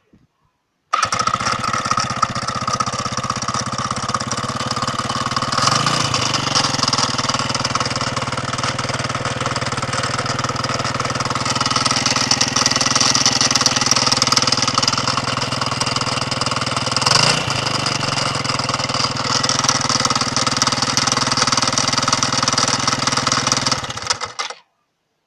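SYM 極速高手 100 scooter's A3G four-stroke engine running with an abnormal noise, which the owner traced to a failed crankshaft bearing rather than the timing chain. It is revved briefly twice, about 6 and 17 seconds in, and cuts off abruptly near the end.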